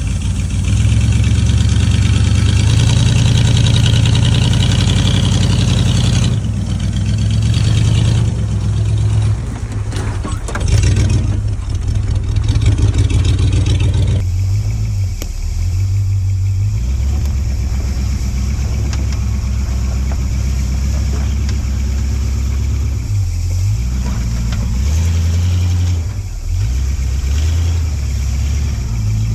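Off-road 4x4's engine running at low revs under changing throttle as the truck works along the trail. It is loudest in the first few seconds, surges briefly about ten seconds in, then settles lower and steadier.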